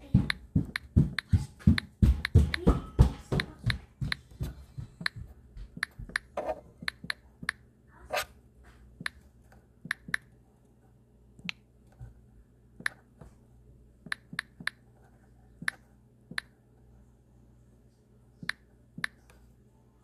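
Sharp clicks or taps: a quick irregular run in the first few seconds, then single clicks every second or two.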